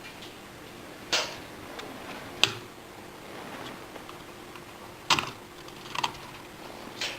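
A handful of short, sharp clicks and taps at irregular intervals: metal tweezers working against the plastic snap-fit clips of the printhead's chip-contact circuit board on the printer carriage, prising it loose.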